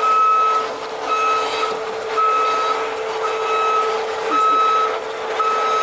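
A truck's backup alarm beeping steadily, one beep about every second, over a steady low hum.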